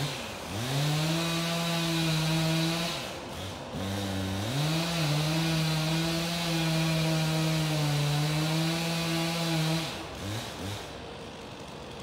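Stihl 362 C two-stroke chainsaw at full throttle cutting into the trunk of a dead red oak, its pitch steady under load. It drops back to idle briefly about three seconds in, and again near the end.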